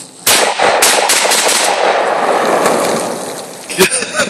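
AK-47 rifle firing a rapid string of shots that begins just after the start, with the sound tailing off over the next two to three seconds.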